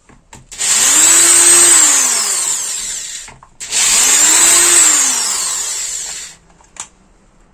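Handheld electric drill-driver run twice. Each time it spins up, holds speed for about two seconds and winds down as it backs out the nuts holding a polisher's carbon-brush cover.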